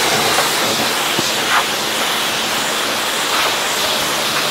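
Self-service car-wash pressure lance spraying water onto a car body, a steady hiss of spray.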